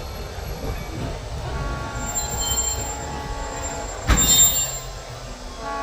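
Walt Disney World Railroad train rolling slowly into the station: a steady low rumble of the wheels on the track, a faint high squeal, and one sharp clunk about four seconds in.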